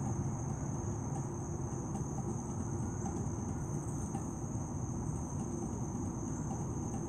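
Steady high-pitched trill of insects, unbroken throughout, over a continuous low rumble of background noise.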